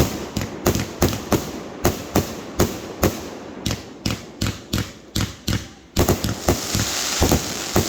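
Fireworks firing a rapid string of sharp bangs, about three or four a second. About six seconds in, a steady crackling hiss joins in under the bangs.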